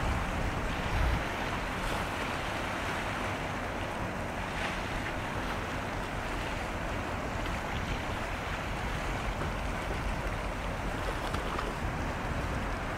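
Steady rush of wind and sea water, with a low rumble underneath and no distinct engine tone.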